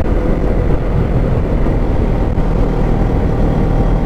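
CFMOTO NK400 motorcycle engine running steadily at cruising speed while riding, mixed with a steady rush of wind noise on the microphone.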